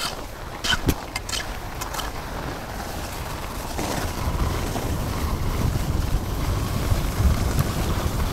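Wind rushing over the microphone, building steadily as the skier gains speed running straight down a groomed piste, with the skis hissing on the snow. A few sharp clicks in the first two seconds.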